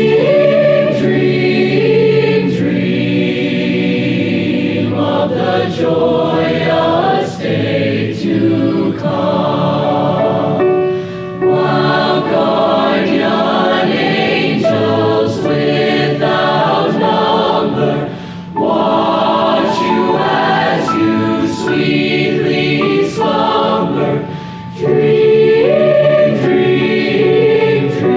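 A choir singing in several parts, with two short pauses between phrases in the latter half.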